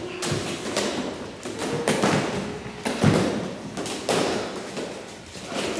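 Foam stage-combat swords striking one another in a group sword fight: irregular dull thuds and taps, a few each second, the loudest about three seconds in.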